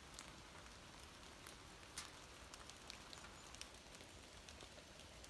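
Near silence: faint background hiss with a few scattered soft clicks.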